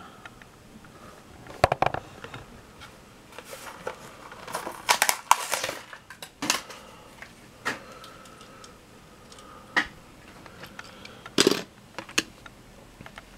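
Scattered clicks, taps and crinkles from handling small die-cast toy cars and their cardboard-and-plastic blister packaging. There is a flurry of crinkling about five seconds in and a sharp tap near the end as a car is set on the display disc.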